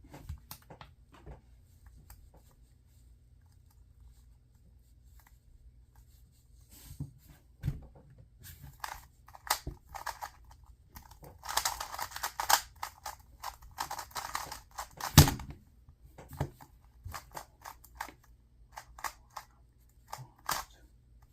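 Plastic 2x2 speed cube being turned by hand, scattered clicks of turns, then a fast run of turning from about 11 to 15 seconds in that ends with a single loud knock.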